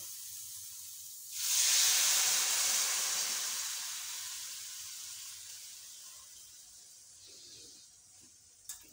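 Hot masala sizzling in an aluminium kadai, then a loud hissing sizzle of steam as water is poured into the hot pan about a second and a half in. The hiss slowly fades over the following seconds.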